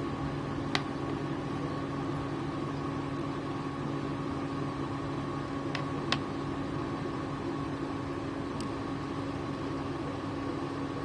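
A steady mechanical hum, with a metal spoon clicking against a nonstick frying pan three times: once about a second in and twice in quick succession around six seconds.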